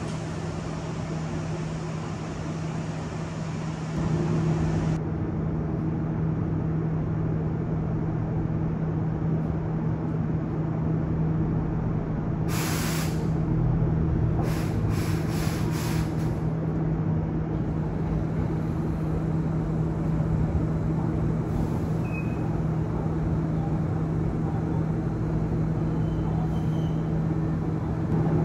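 Steady electrical hum of a Hankyu electric train standing at a station platform, with a burst of compressed-air hiss from its brakes about halfway through, followed by three or four shorter hisses.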